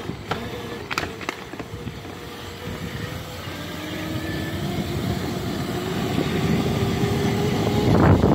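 Razor MX650 electric dirt bike riding on a 36-volt lithium-ion battery: the motor and chain drive whine, the whine slowly rising in pitch as the bike picks up speed, over tyre rumble on gravel and asphalt. A couple of short knocks come about a second in, and the sound swells to a loud rush near the end.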